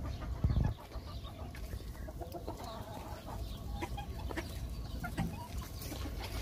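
Sebright bantam chickens clucking now and then, with a brief low thump about half a second in.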